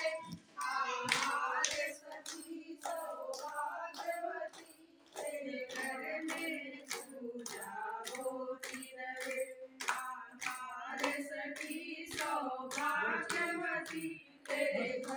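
A group of women singing a bhajan together in unison, clapping their hands in a steady rhythm of about two claps a second.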